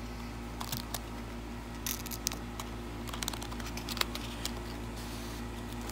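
Cardboard booster box display lid being handled and folded: scattered light rustles and taps, over a steady low hum.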